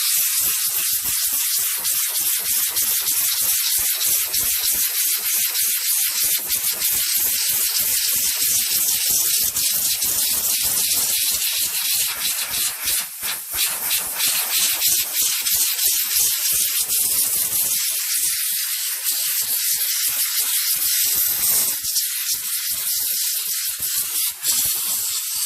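A loud, steady hiss with a rasping edge, high-pitched with almost nothing low. It starts and stops abruptly.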